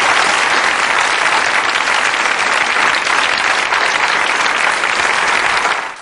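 Studio audience applauding, a dense steady clapping that fades out near the end.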